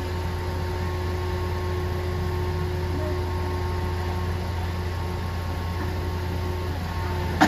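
A grapple-crane recycling truck's engine running steadily while it powers the hydraulic crane. It makes a low, even hum with a thin steady whine above it.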